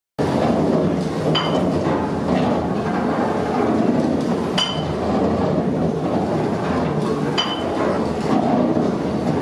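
Heavy iron gear wheels of a bone and flint grinding mill turning under power, a steady rumbling clatter of meshing teeth and shafting, with a sharp ringing metallic clink about every three seconds.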